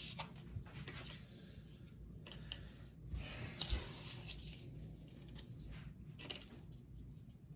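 Rustling and small clicks of cardboard and plastic packaging being handled and moved about, with a couple of light knocks about three and a half seconds in.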